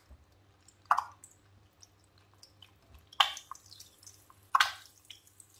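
Eggs frying in hot oil in a nonstick wok: three short crackling spits of oil, about a second in, a little after three seconds and around four and a half seconds, each fading quickly.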